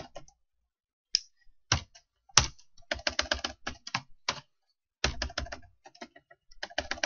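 Computer keyboard typing in short bursts of rapid keystrokes, with a few single sharper key presses in between: a spreadsheet formula being keyed in and keyboard shortcuts such as Control R.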